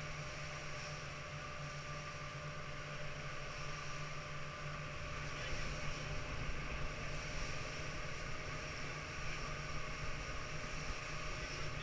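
Motorboat under way at speed: a steady engine drone with water rushing and spraying along the hull.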